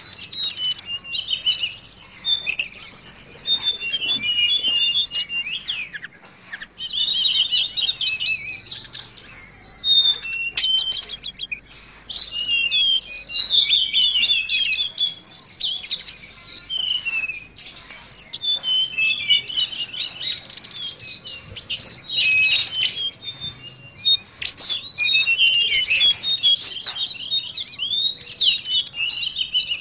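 Tledekan laut (mangrove blue flycatcher) singing a dense, fast run of high chirps, trills and short whistled phrases, almost without a break, used as a lure song to draw in wild birds. There are two brief pauses, about a fifth of the way in and about four-fifths in.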